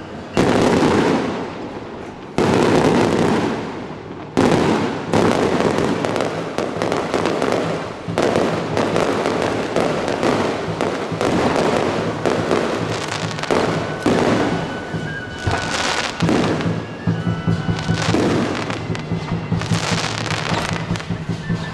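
Aerial fireworks going off: three separate bangs in the first few seconds, each trailing away, then a dense, nearly continuous run of bangs and crackling.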